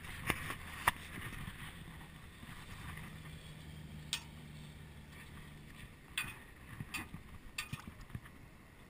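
A cast net being handled as shrimp are picked out of it: scattered light clicks and taps, over a faint steady low hum that fades about two-thirds of the way through.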